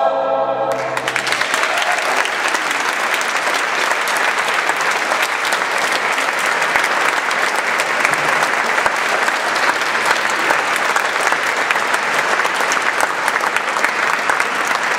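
A choir's final held chord dies away in the first second, and an audience breaks into sustained applause that continues steadily.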